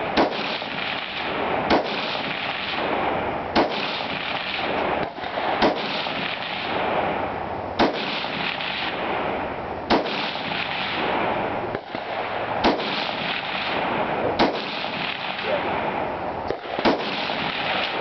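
Carbine fired prone with iron sights, about eight single shots at a steady pace of roughly one every two seconds, each crack trailing off in echo, over a constant rushing noise.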